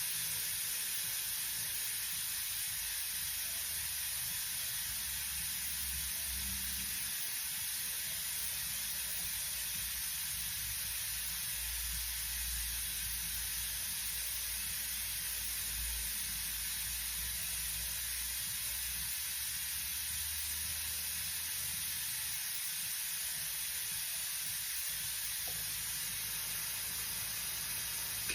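Compressed air hissing steadily through a trigger-operated pneumatic vacuum brake bleeder, drawing brake fluid out of the caliper's open bleed nipple to bleed the brakes after a caliper replacement. It cuts off at the very end.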